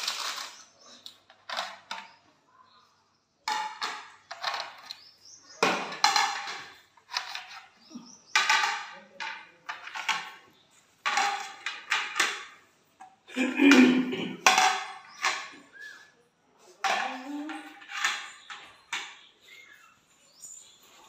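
Dinner plates and bowls clattering and knocking against one another in a run of short, separate bursts as a stack is handled and set down on a stone floor.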